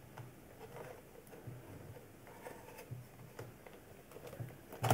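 Faint handling noise from a Polaroid 660 instant camera: small plastic clicks and taps as a film pack is pressed into the camera's film compartment and held against its spring. There is a sharper click near the end.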